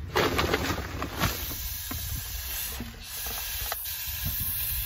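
Faint hissing and handling noise from a can of Great Stuff gaps-and-cracks spray foam being pressed against a floor joist, with two small clicks. The foam will not come out because the can lacks its straw applicator.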